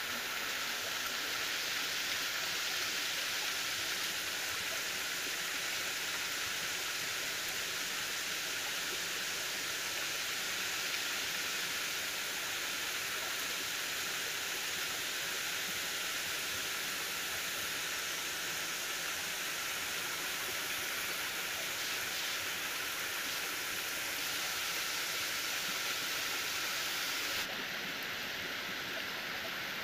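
Steady rain falling on trees and ground, an even hiss that dips slightly in level near the end.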